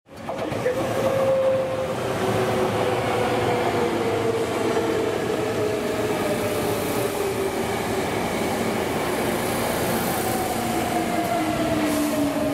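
Hankyu 8300-series electric train running past, its VVVF inverter traction motors whining in several tones that fall slowly in pitch as the train slows. The whine sits over a steady rumble of wheels on rail.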